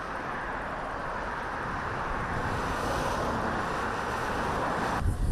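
Cars passing on a road: a steady rush of tyre and engine noise that swells to its loudest about three seconds in, then cuts off abruptly near the end.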